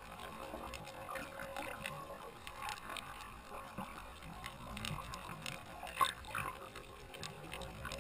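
Underwater reef ambience picked up by a submerged camera: many scattered crackling clicks over a low muffled rumble, with one sharper click about six seconds in.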